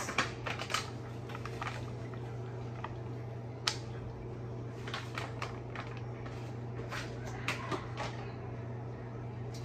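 Scattered light clicks, taps and rustles of seasoning containers being handled and poured into a large stockpot of water, with one sharper click a little under four seconds in, over a steady low hum.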